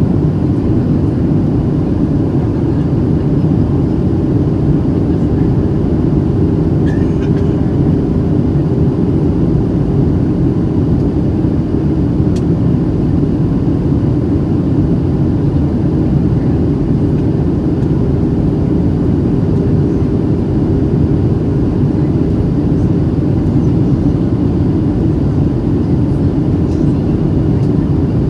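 Steady cabin noise inside a Boeing 737-700 in flight: the low hum of its CFM56-7B jet engines and rushing airflow, with a steady drone.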